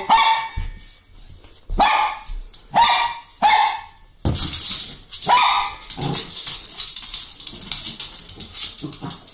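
Small dog barking repeatedly: short barks spaced about a second apart, five or so in all. From about four seconds in, a scratchy rustling noise runs under the later, weaker barks.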